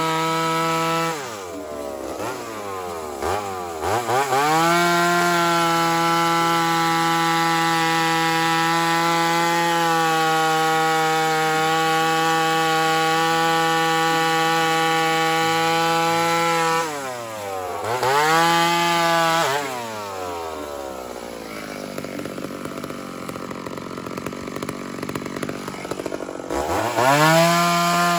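Ported Homelite two-stroke chainsaw running at high revs. The pitch falls away and climbs back twice, then runs lower and rougher for several seconds before revving up again near the end.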